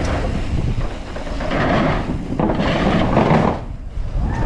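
Commencal Clash mountain bike riding fast down a dirt trail, its tyres rolling over the dirt and the bike rattling. The noise swells twice and drops off briefly near the end.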